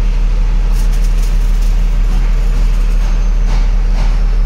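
Engine idling: a loud, steady low rumble, with a few faint clicks and taps over it.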